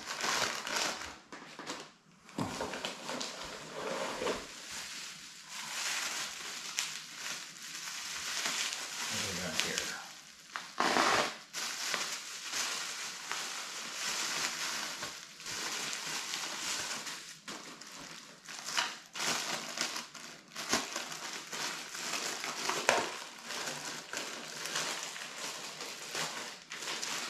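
Plastic packaging bags crinkling and rustling continuously as they are handled and unwrapped, with many quick crackles.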